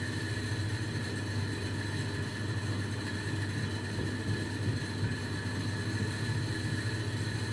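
Steady low machine hum with thin high whining tones above it, running evenly without change.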